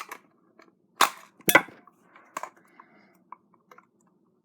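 Hard plastic of a Razer DeathAdder mouse shell snapping as it is pried apart: two loud sharp cracks about a second in and half a second apart, followed by smaller clicks and scrapes of the tool on the plastic.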